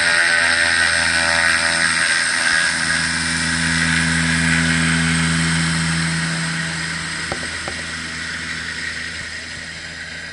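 Single-engine propeller plane running at high power as it rolls down a gravel runway, a steady propeller drone with its hiss that fades as the aircraft moves away.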